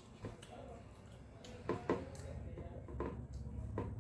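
Eating by hand at close range: sharp wet mouth clicks and smacks while chewing, with fingers mixing rice and curry on a steel plate. A low rumble underneath grows louder about halfway through.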